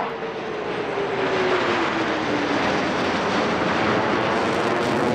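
Two F-15C Eagle fighters, each with twin Pratt & Whitney F100 turbofans, making a loud, steady jet roar as they pass overhead in formation. A whine in the roar slides down in pitch over the first few seconds as they go by.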